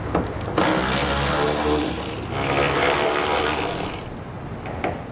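Cordless electric ratchet with a 5/16 socket running for about three and a half seconds, backing out the tail light mounting bolts on a Ford F-150's bed side.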